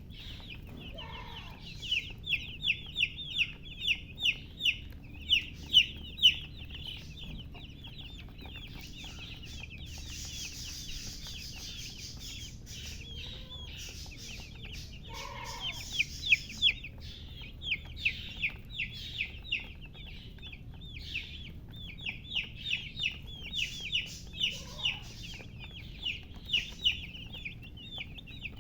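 Baby chicks peeping, many short high falling chirps in rapid bouts with pauses between. A hen gives a low cluck now and then, three times in all.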